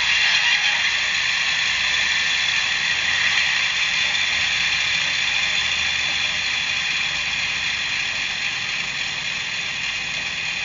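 DCC sound decoder in a Piko DF7C model diesel locomotive playing its diesel engine sound through the model's small speaker. It is a steady drone that is thin, with little low end, and it slowly gets quieter.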